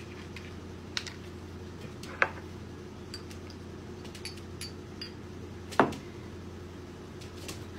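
Small clicks and knocks from handling a glass hot sauce bottle and a shot glass: the cap being unscrewed, a few light ticks, then a sharper knock about six seconds in as the bottle is set down on the countertop. A faint steady hum runs underneath.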